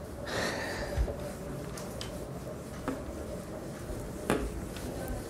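A cloth wiping a whiteboard: a rubbing swish near the start, then a low knock and a couple of sharp taps against the board.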